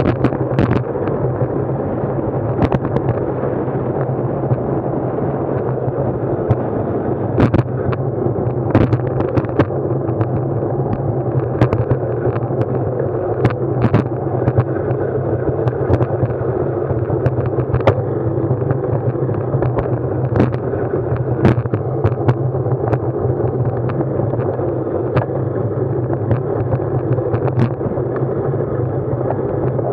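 Steady rumble of wind and road noise picked up by an action camera on a moving ride, with a constant low hum and frequent sharp knocks and rattles from bumps.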